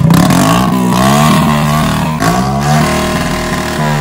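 Hero single-cylinder motorcycle engine revved up and down a few times through a freshly fitted homemade aftermarket silencer in place of the stock one, giving a loud exhaust note.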